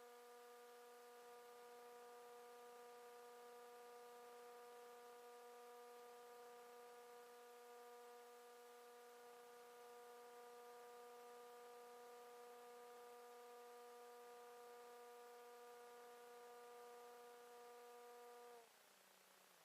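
Faint, steady hum of a Multiplex Easystar model plane's electric motor and propeller, holding one pitch, then dropping in pitch and cutting off near the end as the motor stops.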